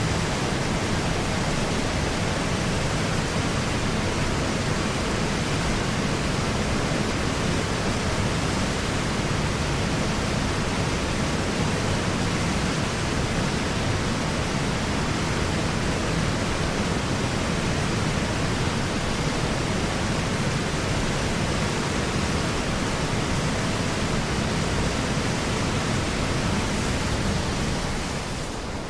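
Steady, even rush of a large waterfall and churning water, with no separate events, fading a little near the end.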